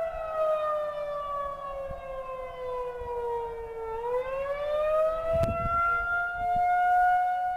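Federal Signal outdoor warning siren sounding the wail signal: a single siren tone slides slowly down in pitch for about four seconds, then climbs back up and holds. A short thump comes about five and a half seconds in.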